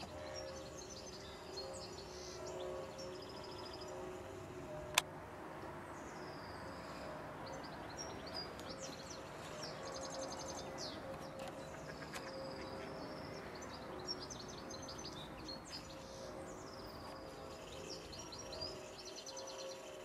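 Songbirds singing and calling: a mix of whistles, trills and chirps over a steady outdoor hiss, with one sharp click about five seconds in.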